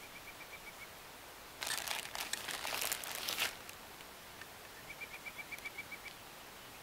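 Packaging or paper crinkling as it is handled, a loud crackly rustle lasting about two seconds. A faint, fast run of high, even chirps comes near the start and again near the end.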